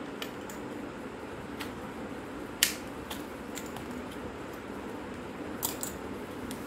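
Plastic clicks and snaps from an old camera's casing as it is handled and pried apart: scattered light clicks, one sharp snap about two and a half seconds in and a quick pair near the end, over a steady low hum.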